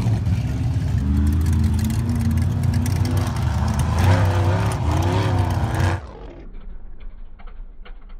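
Off-road race buggy's engine revving hard as it climbs, its pitch rising and falling. About six seconds in, the sound drops suddenly to a much quieter, muffled level with scattered ticks.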